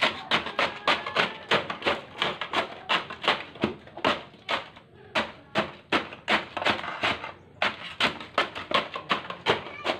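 A long metal stirring pole knocking and scraping against the metal canister of an ice cream churn as half-frozen ice cream is worked by hand. It is a quick, even run of sharp knocks, about three a second.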